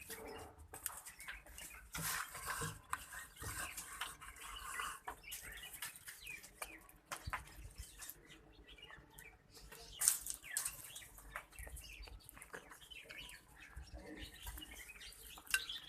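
Animals eating eagerly and jostling over food: many small pecking and scuffling clicks with short chirping calls, and one sharper knock about ten seconds in.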